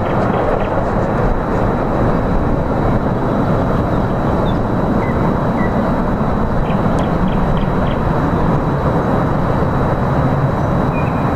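Jet airliner engine noise: a steady, loud rush with no rise or fall in level.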